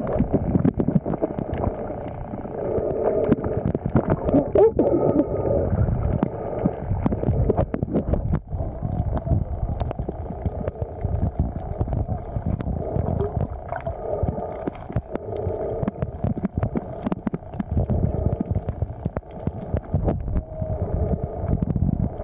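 Muffled underwater sound picked up by a submerged camera: a continuous low rumble and gurgling of water, with many small clicks and knocks.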